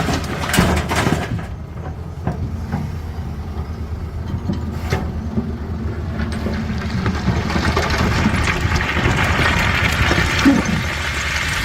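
Cat 320D hydraulic excavator's diesel engine running, with stones knocking and clattering in the first second. It grows louder in the last few seconds as the machine works.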